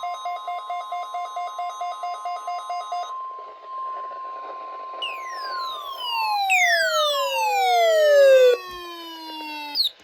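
Several NOAA weather radios alerting at once to the weekly test alarm. A fast pulsing beep of about four or five a second stops about three seconds in, and the steady 1050 Hz warning alarm tone runs on until about six seconds in. Over it, repeated falling siren-like sweeps from radios with a siren alert overlap and cut off near the end.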